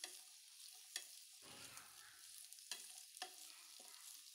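Faint sizzle of diced onion and green capsicum sautéing in oil in a pan, with a few light clicks of a spatula stirring them.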